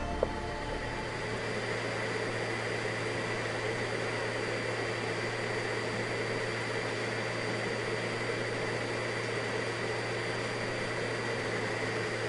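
Canister vacuum cleaner running steadily, a constant rushing noise with a high motor whine.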